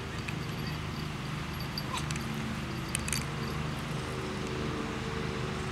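Schipperke puppy giving a few short, high yips about two and three seconds in, over a steady low background hum.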